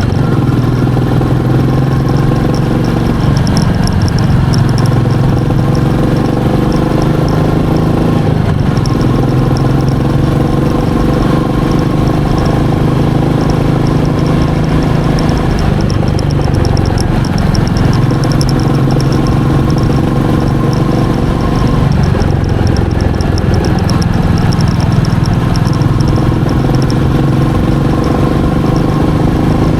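Royal Enfield Meteor 350's single-cylinder engine under way on the ride. Its note drops and picks up again several times as the throttle and gears change.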